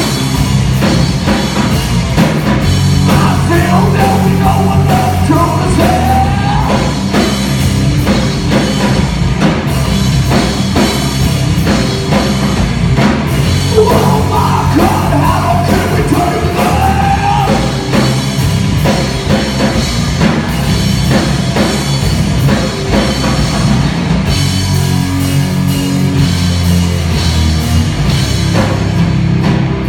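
Live heavy rock band playing loud: distorted electric guitars, bass and a drum kit, with vocals.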